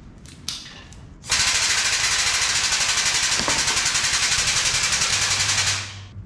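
Impact wrench hammering in one steady rattling run of about four and a half seconds, starting about a second in and stopping near the end.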